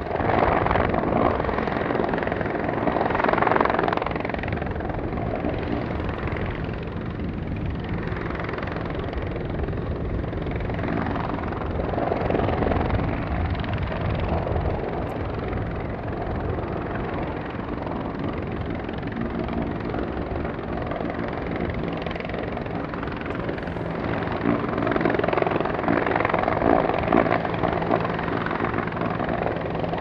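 Disaster-prevention rescue helicopter flying close by: a steady, loud rotor beat with its engine running, swelling slightly a few times.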